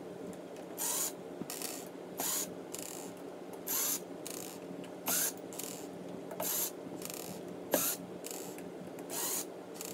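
Cordless drill-driver backing screws out of a speaker's back panel: a run of short whirrs, about one every second and a half, each rising in pitch as the motor spins up.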